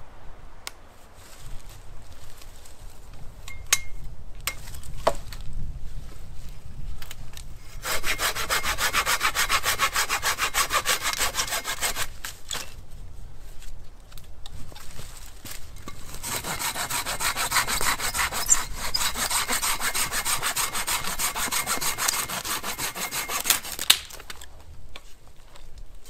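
A hand saw cutting through wood in two long bouts of steady back-and-forth strokes, one of about four seconds and one of about eight, with a short pause between. A few handling knocks and clicks come before the first bout.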